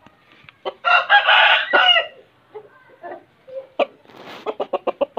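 An Aseel rooster crows once, a loud call of about a second that ends on a falling note. Near the end comes a quick run of short, sharp sounds.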